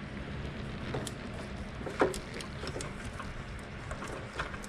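Handling noise: scattered faint clicks and one light knock about two seconds in, over a low steady hum.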